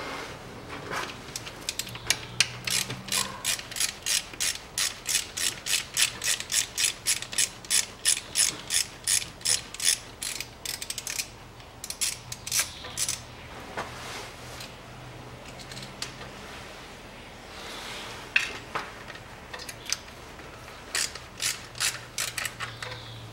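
Socket ratchet clicking in quick runs, about three or four clicks a second, as the last bolts of an automatic transmission oil pan are backed out. A long run near the start, then shorter bursts of clicks later.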